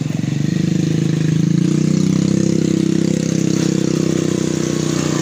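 Motorcycle engine running close by at low, steady revs, growing louder over the first second or so and then holding.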